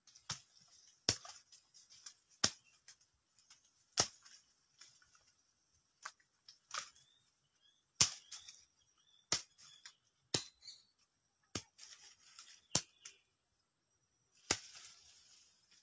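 About a dozen sharp snaps at irregular intervals, roughly one a second, as fruit stalks are snapped off a tree by hand during picking. A faint steady high-pitched hiss runs underneath.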